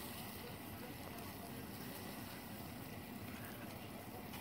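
Coca-Cola boiling hard in a metal saucepan, a low steady bubbling and crackle as the soda thickens.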